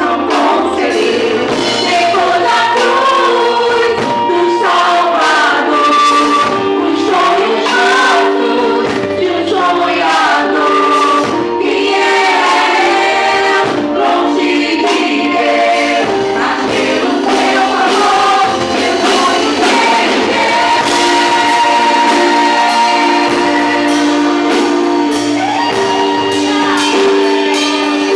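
A church worship vocal group singing a gospel song in Portuguese with musical accompaniment, several voices together.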